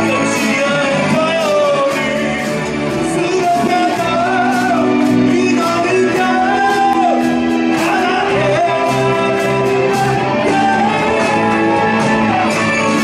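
Live rock band playing a Japanese Shōwa-era rock kayō cover: a singer's voice over electric guitar and bass, with a steady beat of cymbal strokes throughout.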